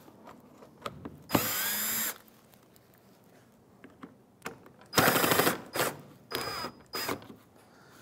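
Cordless drill-driver with a Phillips bit spinning in short runs to back out screws from a plastic grille: one run about a second and a half in, a louder, uneven one about five seconds in, then two brief blips near the end.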